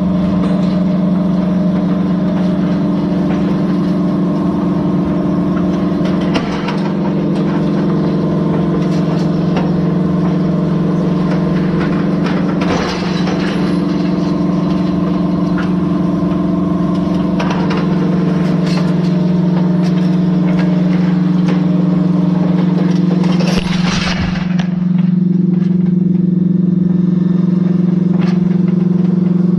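Large articulated four-wheel-drive farm tractor's diesel engine running steadily under load while it pulls a wide field cultivator, one constant droning note. A few brief rattles come through now and then.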